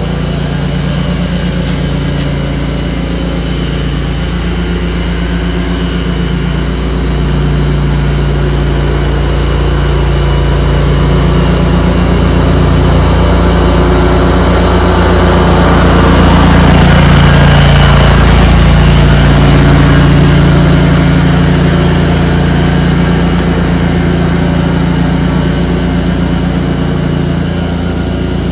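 Cub Cadet 106 garden tractor's single-cylinder Kohler engine running steadily while the tractor mows grass. The sound swells to its loudest a little past the middle, then eases back slightly.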